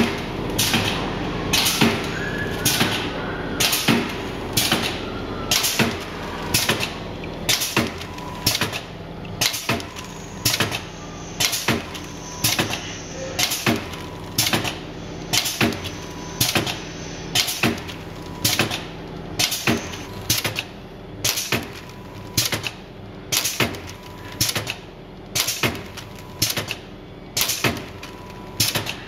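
GKS Minipack 150 vertical bagging machine with a Minifill pump running, packing 50 ml dressing bags at 30 bags a minute. Sharp mechanical knocks repeat evenly about once a second over a steady machine hum.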